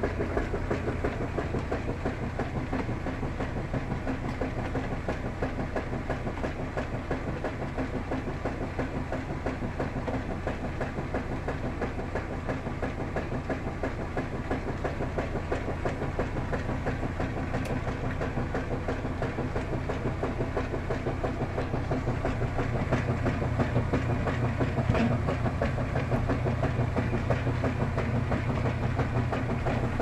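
Kenmore top-load washing machine running its agitation cycle with the lid open. The motor hums steadily while the agitator churns the clothes through the water.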